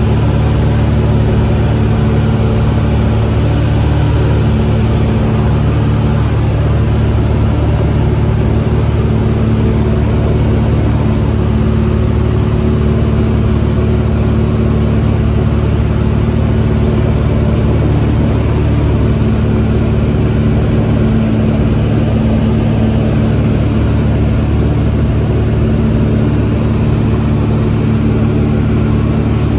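Maule M-6 single-engine light plane's piston engine and propeller in steady cruise, heard inside the cabin as a loud, even drone that holds unchanged throughout.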